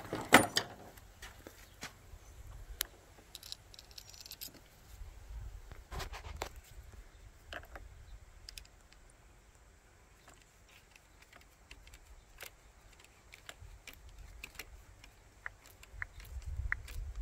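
Scattered small metallic clicks and clinks of a screwdriver working a worm-drive hose clamp on an outboard engine's hose, with a louder clatter just after the start and another cluster about six seconds in.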